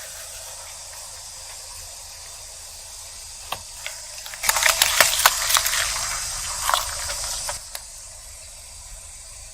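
Objects being crushed under a car tyre: a steady hiss, then about three seconds of crackling and popping clicks from about halfway through.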